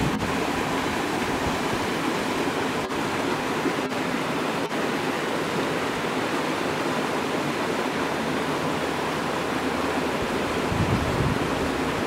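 Waterfall pouring down a rock face into a pool: a steady rush of falling water, with some wind rumble on the microphone near the end.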